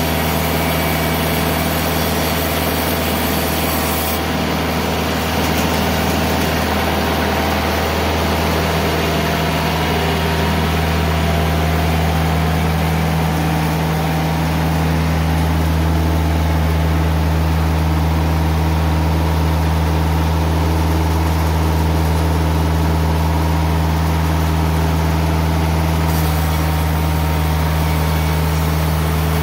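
TimberKing 2020 bandsaw sawmill running with a steady engine drone while the band blade cuts through a log. A high hiss drops away about four seconds in and comes back near the end.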